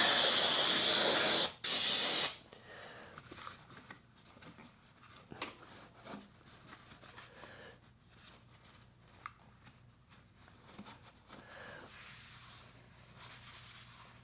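Aerosol brake cleaner spraying: one hissing burst of about a second and a half, a brief break, then a short second burst ending about two seconds in. After that only faint scattered taps.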